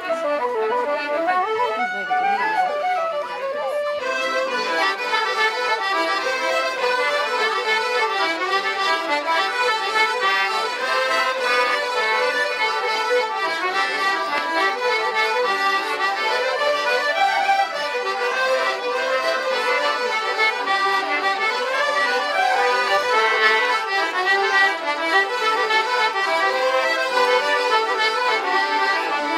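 A group of button accordions playing a traditional Irish tune together. A fiddle's sliding notes are heard briefly at the start, and the accordion ensemble comes in about four seconds in.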